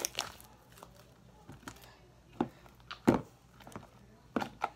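Sticky homemade slime being kneaded and pulled apart by hand, giving a scatter of short wet pops and crackles, the loudest about three seconds in.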